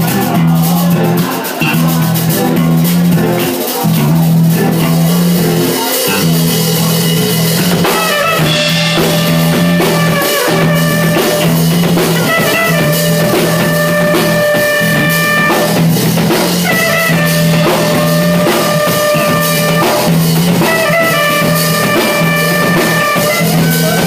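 Instrumental band music with a drum kit and guitar over a steady bass line; from about eight seconds in, long held chords come in and out in repeating phrases.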